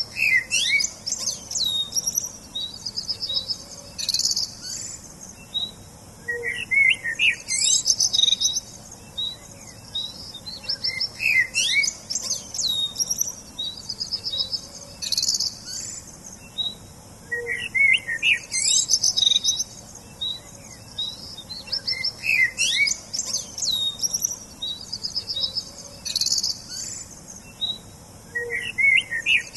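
Songbirds chirping and singing: quick high chirps, sweeping whistled notes and rapid trills, with bursts of song returning every few seconds.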